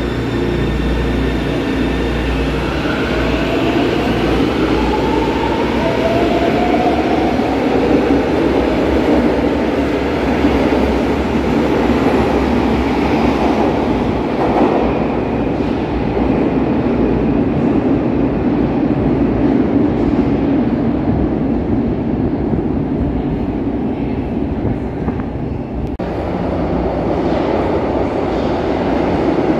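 São Paulo Metro trains running through an underground station. A train pulls away, its traction motors whining upward in pitch over the first several seconds, while the cars rumble past on the rails. A short lull comes before another train approaches out of the tunnel near the end.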